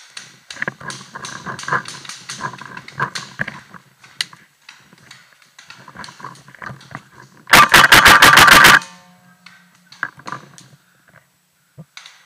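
A paintball marker firing a rapid burst of about ten shots in just over a second, about seven and a half seconds in; it is very loud, right at the microphone. Before it come softer rustles and clicks.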